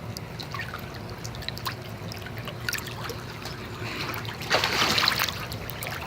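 Water trickling and lapping, with a louder surge of water noise about four and a half seconds in.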